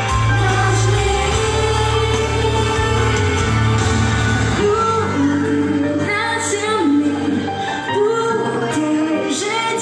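Live pop song through a concert sound system, heard from the audience: female voices singing a melody over a full backing track, the deep bass dropping away about halfway through.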